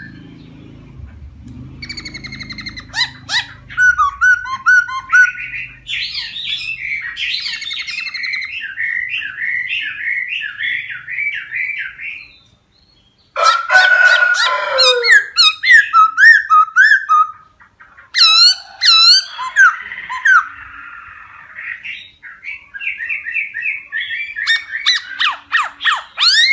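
Laughingthrush singing a loud, varied song of repeated slurred whistles, fast trills and rising-and-falling phrases, with a short break about halfway through.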